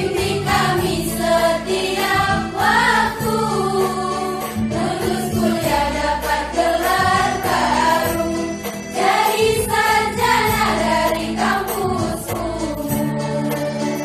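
A women's choir singing a song in several voices, with steady low notes held underneath.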